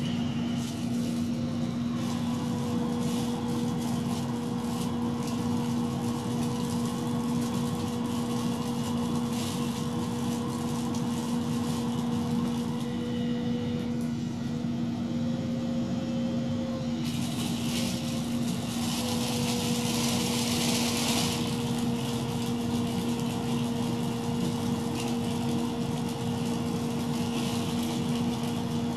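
Small PC cooling fan fitted with a 3D-printed pressure-boost adapter, running steadily with a constant hum and a thin whine. It is blowing into a plastic bag and working against the bag's back-pressure as it inflates. The whine shifts up in pitch for a few seconds around the middle, and a burst of hissing rustle comes about two-thirds of the way in.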